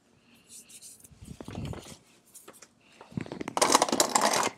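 Rummaging among small hard objects, with clattering and scraping, in a dense run of rattles in the last second and a half.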